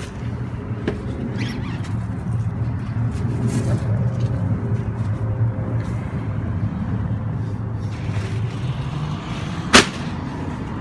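Vehicle engine idling with a steady low hum, then a car door slamming shut once near the end.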